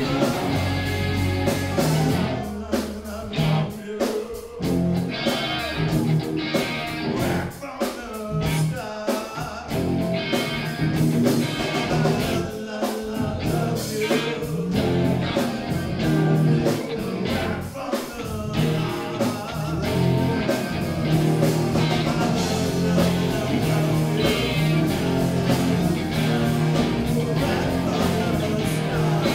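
A live rock band (electric guitars, bass guitar and drum kit) playing, heard from the audience in a small club. The low end drops out briefly several times in the first half, then the band settles into a steadier, fuller groove.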